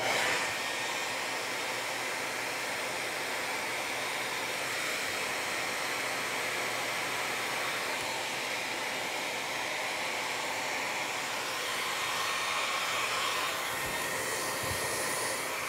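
Hand-held hair dryer running steadily on hot, blowing at close range onto a mass of 3D-printed plastic hairs to soften them for styling.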